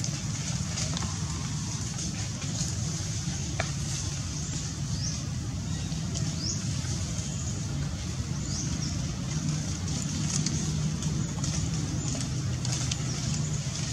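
Steady low motor drone, like a vehicle engine running, with a constant high buzz above it and a few short chirps.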